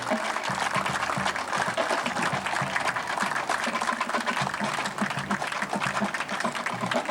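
A crowd applauding: steady, dense clapping with some voices mixed in.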